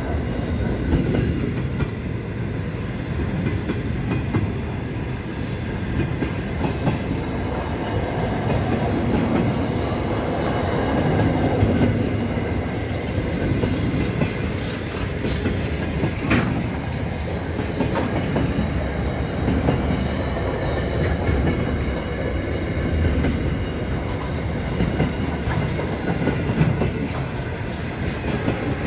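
Freight train of container-carrying wagons rolling steadily past, a continuous rumble of wheels on the rails, with a brief sharp click about sixteen seconds in.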